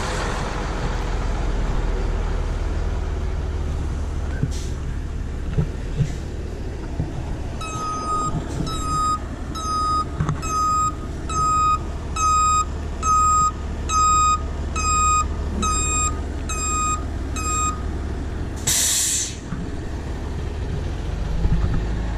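Flatbed tow truck backing up: its engine running under a steady series of about a dozen reverse-alarm beeps, then a short, sharp hiss of the air brakes being set.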